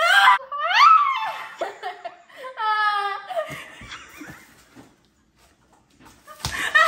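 Girls laughing. A sudden high squeal rising in pitch opens it, a drawn-out laughing cry follows a few seconds in, and it dies away briefly before more laughter and a knock near the end.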